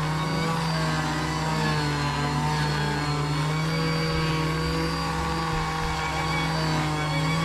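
Electric finishing sander running steadily with a constant motor hum while it sands the knife.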